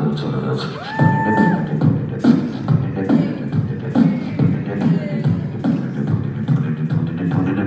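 Beatboxing into a handheld microphone: a steady beat of low kick sounds about twice a second with sharp high clicks between them. About a second in, a short held vocal note slides up into the beat.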